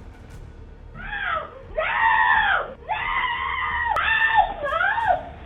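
A woman screaming again and again, about five long high cries that arch up and fall in pitch, starting about a second in, picked up by a home security camera's microphone.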